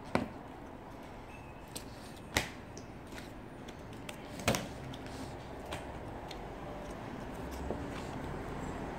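Toy packaging being handled and opened by hand: three sharp knocks about two seconds apart, with smaller clicks and handling noises between them.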